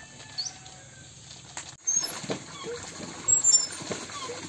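Hands working clothes in a basin of soapy water, quiet, then about two seconds in a cast-iron hand pump being worked, with a series of sharp clanks from its handle strokes.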